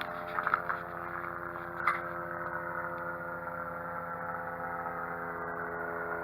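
Steady helicopter-like rotor thrum from an aircraft in flight, several held tones over a rhythmic low chop, the upper tones sinking slightly in pitch. A few light clicks come in the first two seconds.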